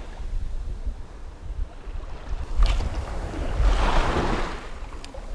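Small waves washing and fizzing in shallow surf, with wind buffeting the microphone. One wash swells and is loudest about four seconds in, and there is a brief sharp tap a little before it.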